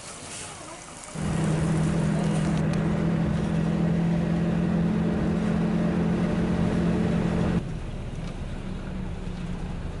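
A vehicle running with a loud, steady low drone that starts suddenly about a second in and cuts off abruptly about seven and a half seconds in, leaving a quieter steady rumble.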